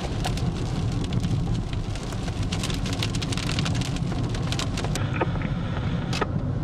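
Rain striking a moving car in many irregular sharp hits over a steady low road-and-engine rumble. The hits thin out about five seconds in.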